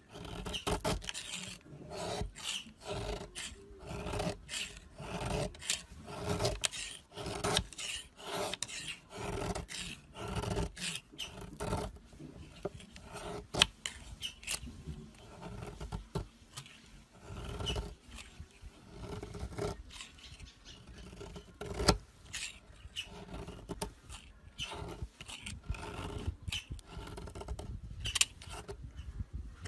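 Knife blade shaving thin flakes off a bar of soap: repeated dry scraping strokes, about one to two a second, coming thicker in the first half and more spaced out later.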